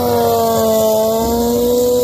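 Drag-racing sportbike engine held at high revs, a steady high-pitched note that wavers slightly up and down.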